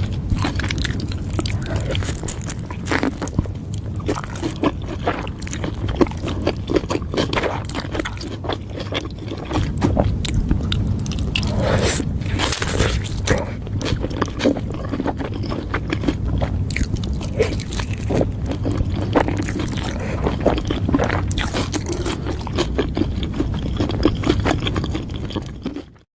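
Close-up chewing and biting of a burger sandwich: many irregular crunchy crackles and wet mouth clicks over a steady low rumble, cutting off suddenly near the end.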